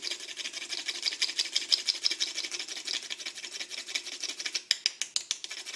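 A small piece of whole nutmeg being grated on a small metal hand grater: quick, even rasping strokes, several a second, with a few sharper clicks near the end.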